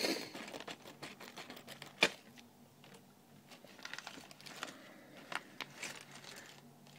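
Scissors cutting into a thin plastic poly bag, with one sharp click about two seconds in, then the bag crinkling as it is handled and opened, with a few small plastic clicks.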